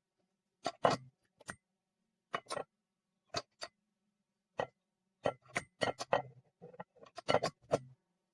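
A series of sharp, unevenly spaced clicks and knocks of hard parts being handled, about a dozen over several seconds, coming closer together near the end.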